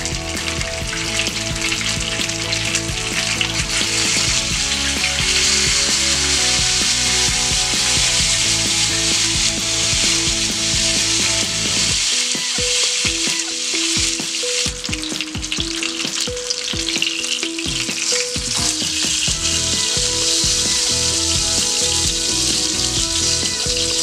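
Hot cooking oil sizzling in a frying pan around two fried tilapia as they are lifted out with a silicone spatula and tongs, with a few clicks of the utensils against the pan. Background music with steady notes plays underneath.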